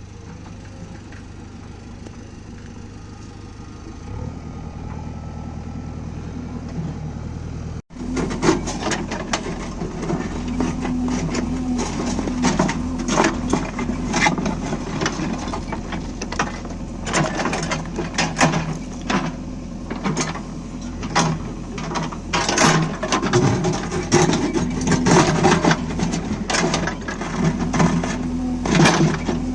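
JCB backhoe loader's diesel engine running steadily. From about eight seconds in it is louder and its note rises and falls under load, with many sharp knocks and scrapes from the bucket digging a water-line trench.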